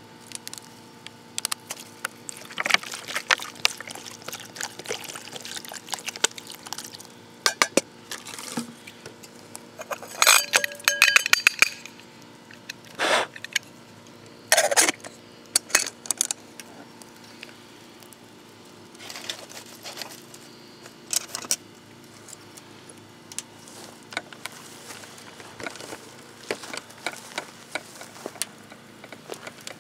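Metal camp kettle being handled: its lid and wire bail handle clink and knock against the pot. There is a burst of ringing metal clinks about ten seconds in, then two sharper knocks as the lid goes on.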